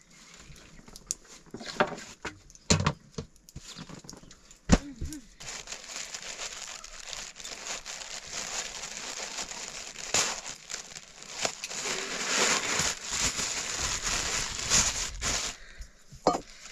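Rummaging through plastic sacks and stored containers: a few knocks in the first five seconds, then steady crinkling and rustling that grows louder.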